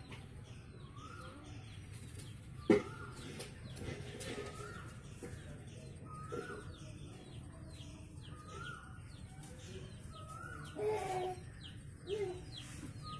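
A bird repeating a short rising call about once a second over a faint background hum. A sharp click about three seconds in is the loudest sound.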